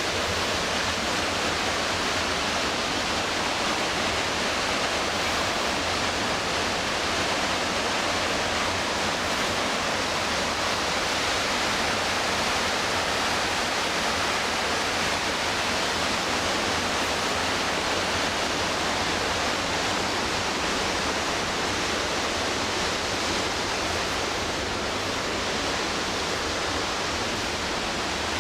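Steady, loud rush of whitewater from the McKenzie River, with no let-up or change.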